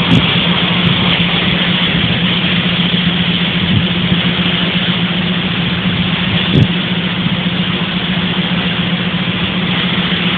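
Engine or heavy machinery running steadily, with a constant low hum under a loud even noise. A single sharp knock comes about six and a half seconds in.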